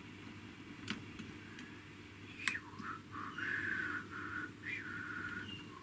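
A person whistling a tune from about three seconds in, in short held notes that step and bend in pitch. Before it, a couple of small clicks of a metal pick against the microphone's plastic housing, the sharper one about two and a half seconds in.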